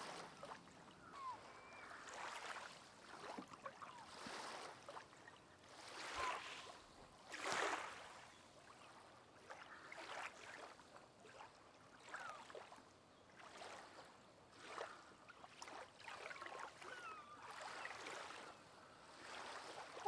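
Quiet lake water: soft lapping and dripping, with a couple of slightly louder swells midway and a few faint, short high chirps scattered through. A common loon's call begins with a rising note right at the very end.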